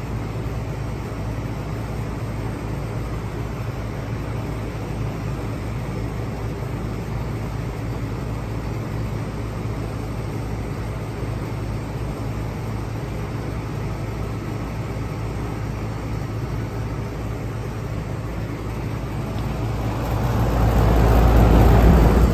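Lennox air conditioner units running steadily, a constant low hum with fan rush over it. Over the last few seconds the rushing noise swells louder.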